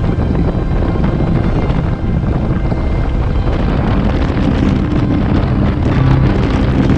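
Motorcycle engine running steadily at cruising speed, with wind rushing over the handlebar-mounted microphone.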